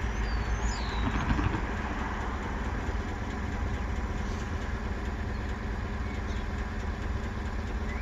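An engine idling steadily, a low even sound that holds without change.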